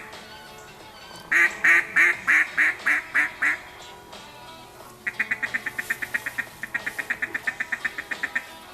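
Mallard duck call blown by a hunter: a series of about eight loud, evenly spaced quacks that trail off, then after a short pause a longer, faster run of quacks at about seven a second.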